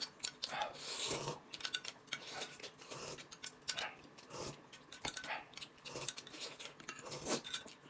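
Close-miked eating noises: a drink being sipped from a glass cup and braised pig's trotter being eaten by hand, with irregular small clicks and light clinks of tableware.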